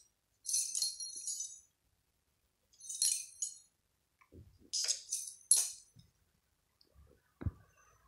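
A small bell jingling in three short bursts about two seconds apart, the sound of kittens batting a jingly cat toy, with one soft thump near the end.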